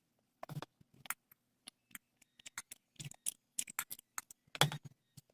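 Close-up chewing of a mini Baumkuchen cake: irregular mouth clicks and soft smacks, a few every second.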